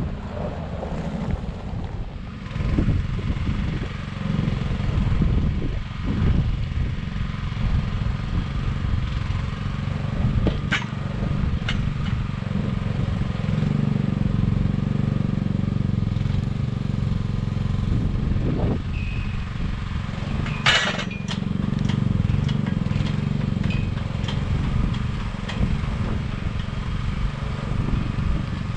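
An engine running steadily, with a few sharp metallic knocks along the way; the loudest comes about two-thirds through.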